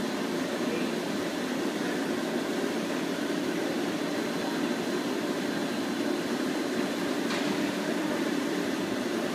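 HT-25 hood-type commercial dishwasher running a cycle with its hood closed: a steady, even running noise with a faint high whine. A single sharp click sounds about seven seconds in.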